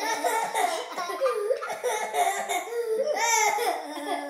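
A young child laughing hard and continuously in high-pitched peals, with a higher rising-and-falling peak about three seconds in.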